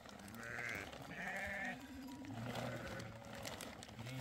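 Several baby goats bleating from a crowded pen, a few overlapping calls, higher-pitched ones in the first two seconds and lower, longer ones after.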